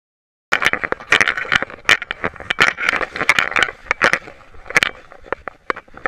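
Dense scraping and crackling contact noise on a dog-collar-mounted GoPro housing as it rubs against the dog's fur, collar and grass. It starts abruptly about half a second in and thins out in the last couple of seconds.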